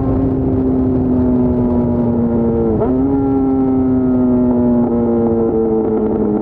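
Yamaha FZ6's inline-four engine running under way, its note easing slowly lower, with a brief dip and recovery in pitch about three seconds in and a step change in pitch about five seconds in.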